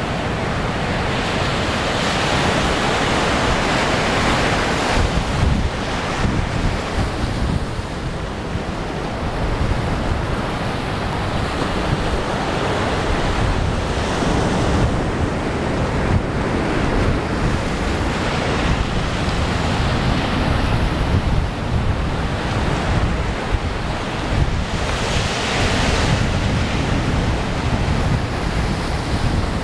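Ocean surf breaking and washing over flat shoreline rock, swelling louder a few times as waves come in, with heavy wind buffeting on the microphone.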